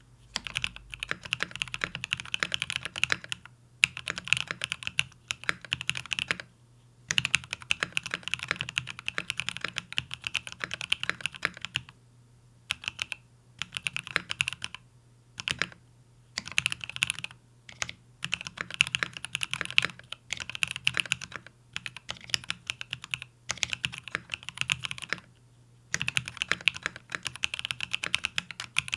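Fast typing on a mechanical keyboard: an XO K80 with a polycarbonate case, lubed Durock L4 switches and XDA-profile PBT keycaps, resting on a deskmat. The keystrokes come in dense runs of quick clacks, with brief pauses every few seconds.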